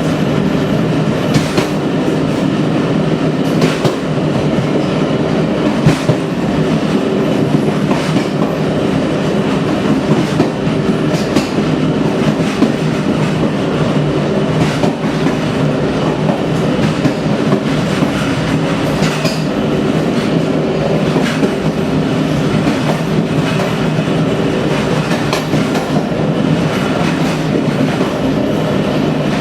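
Train wheels rumbling steadily over badly worn track, with irregular knocks as they strike the rail joints.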